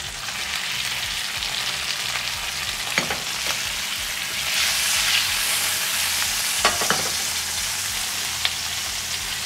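Skin-on chicken breasts sizzling in hot oil in a frying pan just after being turned: a steady frying hiss that swells briefly midway, with a few short ticks.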